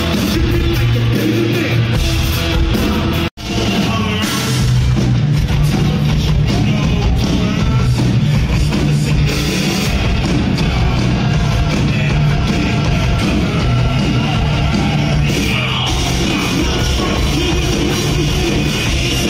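Live rock band with loud drums, guitar and shouted vocals, heard from the crowd. The sound cuts out for an instant about three seconds in, then comes straight back.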